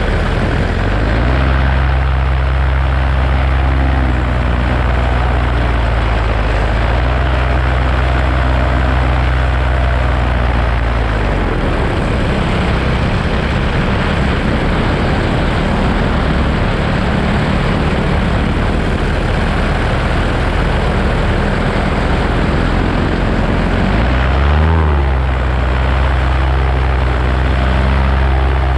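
Paramotor engine and propeller running in flight, with wind noise on the microphone. The engine note holds steady, changes about eleven seconds in, then dips and climbs back up about twenty-five seconds in as the throttle is eased and opened again.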